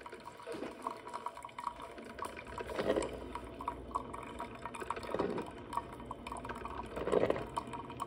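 Elite Gourmet single-serve coffee maker brewing: heated water bubbling and gurgling through the machine as it makes coffee, with a steady crackle of small pops and louder gurgling surges about every two seconds.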